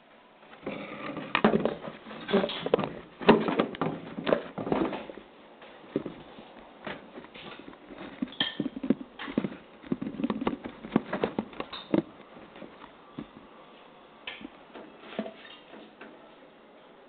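Irregular knocking and clattering, a rapid uneven run of sharp knocks, densest over the first five seconds and again a little past the middle, then thinning out.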